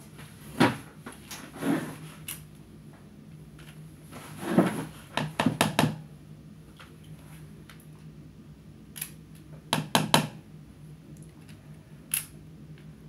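Scattered small clicks, taps and short scrapes of handwork: the inside of a drilled apricot pit being picked and scraped out, with a cluster of quick clicks a few seconds in and again near the end. A steady low hum runs underneath.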